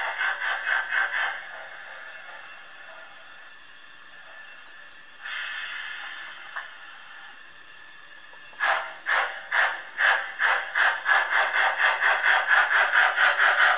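Digital sound decoder of a Märklin H0 class 86 steam locomotive model playing steam chuffing at about three to four beats a second. The chuffing stops about a second in and gives way to a steady steam hiss that grows louder around the middle. The chuffing starts again about two-thirds of the way through.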